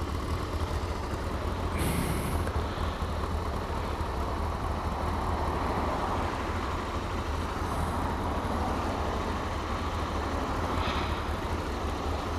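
Motorcycle running with a steady engine and road rumble. Two short hisses stand out, one about two seconds in and another near the end.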